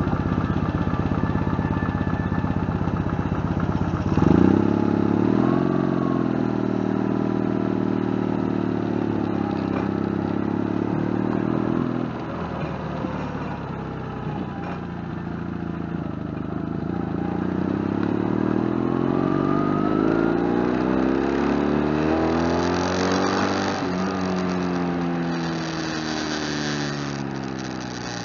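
Motorcycle engine pulling away and accelerating, its pitch rising sharply about four seconds in, then running steadily. It climbs again through the middle and eases off, pitch falling, near the end as the bike slows.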